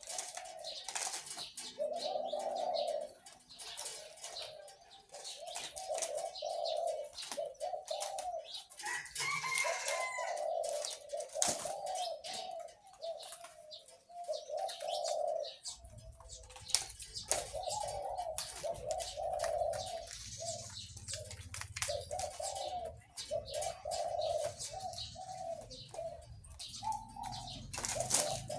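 A male zebra dove cooing over and over in deep, rounded phrases. The bird was bred for the big voice prized in Thai cooing contests. Sharp clicks and taps sound between the phrases.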